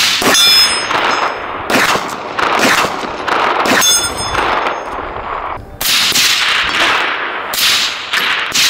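Semi-automatic DMR rifle fire: a rapid string of sharp shots, roughly two a second with short pauses, each trailing an echo. A brief high metallic ringing follows the shots near the start and again about four seconds in.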